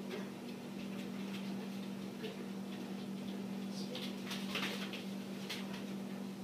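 Soft footsteps and light taps of a dog and a walking person on rubber foam floor mats, with a cluster of quick clicks about four to five seconds in, over a steady low hum.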